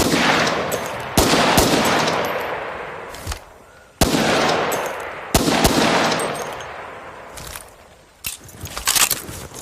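Thompson submachine gun (.45 ACP) firing: four single loud shots, each trailing off in a long echo over a few seconds, then near the end a rapid burst of automatic fire.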